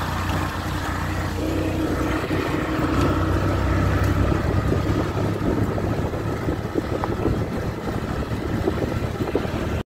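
Motorcycle engine of a tricycle with sidecar running steadily under way, heard from inside the sidecar, with constant rattling and clatter as it rides over a rough gravel road.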